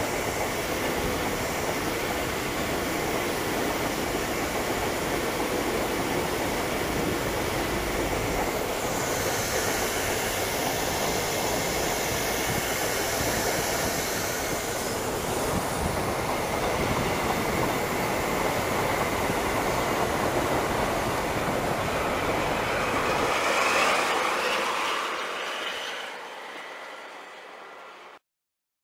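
Diesel snowplow locomotive running through deep snow on the track, its engine and the rush of thrown snow blended into one steady rumble. It swells as it passes close, then fades away and cuts off just before the end.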